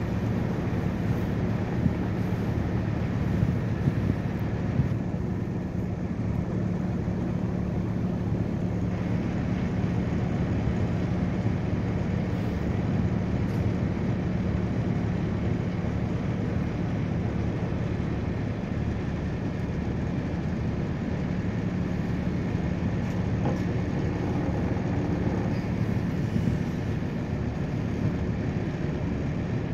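Excursion boat's engine running with a steady low drone, under an even rush of wind and water passing the open deck.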